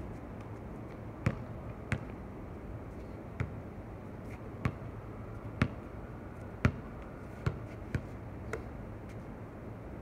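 A basketball bouncing on an outdoor hard court: about nine separate thumps at uneven intervals, over steady low background noise.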